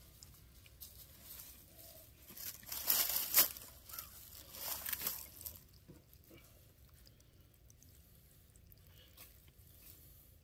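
Water splashing and streaming off wet laundry as it is hauled up out of a stainless-steel wash tub, loudest for about three seconds in the middle. Soft scattered crunchy handling noises come before and after it.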